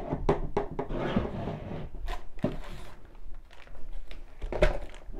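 Handling noises: rustling of the crocheted bag and yarn, with irregular light knocks and clicks as the bag handles are moved into place for sewing.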